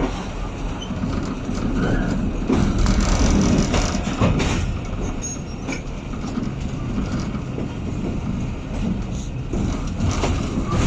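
A passenger train coach running along the track: a steady low rumble of wheels on rail, with sharp knocks now and then as the wheels pass over rail joints.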